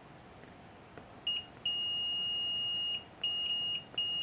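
Multimeter continuity beeper sounding with its steady high tone: a short beep about a second in, then one long beep of about a second, then several shorter broken beeps. The tone shows continuity across a repaired break in the circuit board trace, now bridged with a soldered wire.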